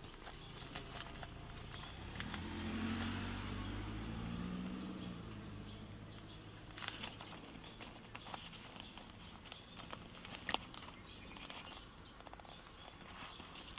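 A vehicle passes on the road, its engine hum swelling about two seconds in and fading by about six seconds. Birds chirp faintly in the background, with a few sharp clicks and rustles.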